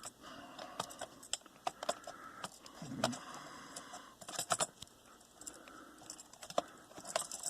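Faint, scattered metallic clicks and taps of a laptop CPU heatsink being handled and worked back into place in the chassis, with small bunches of clicks about halfway and near the end.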